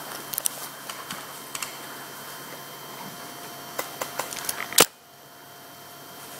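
A few scattered sharp clicks, then a quick run of four about four seconds in, the last one the loudest.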